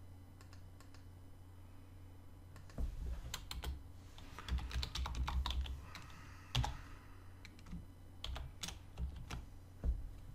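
Computer keyboard typing: irregular keystroke clicks, a few faint ones at first, then busier from about three seconds in, over a low steady hum.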